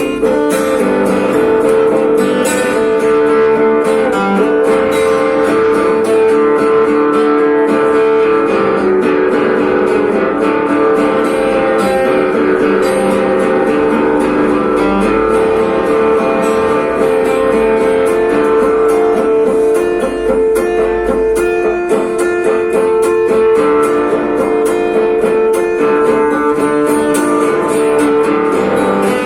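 Guitar music: plucked and strummed guitar playing continuously over a steady, droning note, in the style of Tuareg desert blues.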